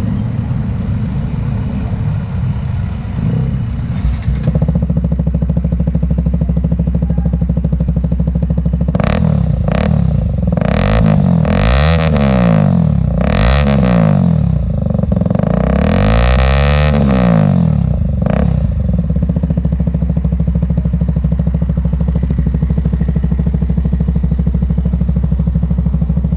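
KTM RC200's single-cylinder four-stroke engine through an aftermarket Akrapovič Hexatip exhaust, idling with a fast, even pulse. From about nine to eighteen seconds in, the throttle is blipped several times, each rev rising and falling in pitch, before the engine settles back to idle.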